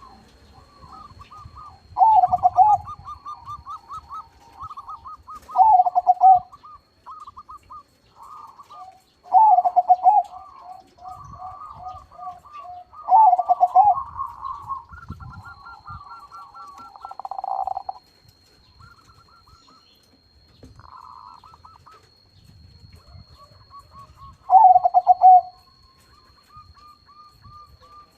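Zebra dove (perkutut), a crossbred local/Bangkok bird, cooing. It gives five loud rolling coo phrases with softer rapid cooing notes between them. There is a lull of several seconds past the middle.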